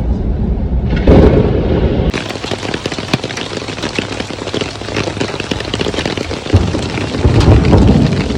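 Heavy rain falling, a dense patter of drops striking surfaces. A low rumble, like wind buffeting the microphone, comes at the start and again near the end.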